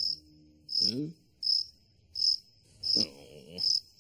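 Cricket-chirp sound effect: a short high chirp repeating evenly about every three-quarters of a second, the stock gag for a crowd's dead silence. A brief low voice sound comes about a second in and again near three seconds.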